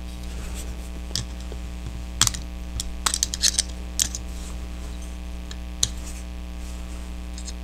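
Small metal-on-metal clicks and scrapes as a punch and a screwdriver push a C-clip off the trigger pin inside a Ruger Mark I pistol frame. A few scattered sharp ticks, with a quick cluster about three seconds in.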